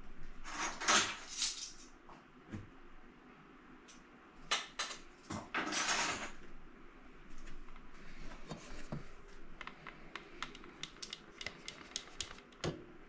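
Kitchen utensils and dishes being handled: a few short scraping, rustling strokes in the first half, then a run of light clicks and taps.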